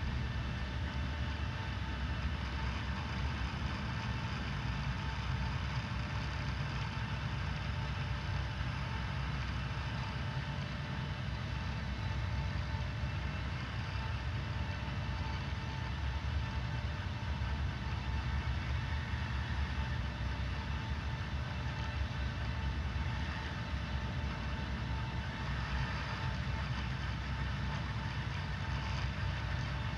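Steady low mechanical hum and rumble, with a faint steady whine above it, from an enclosed six-axis motion-simulator cabin on a hexapod platform with its actuators and ducting.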